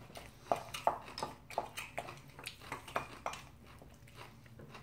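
A spoon stirring rice and vegetables in a stainless steel bowl: a run of short, irregular clinks and scrapes, a few a second, tailing off near the end.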